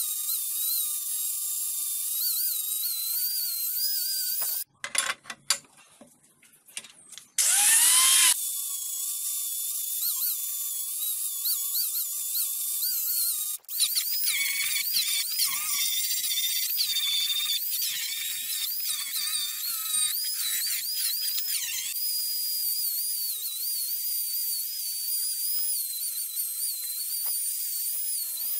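Electric angle grinder running with an abrasive disc and wire brush scrubbing rust off steel drill press parts, a high whine that wavers as the tool is pressed into the metal. It breaks off for a couple of seconds about five seconds in.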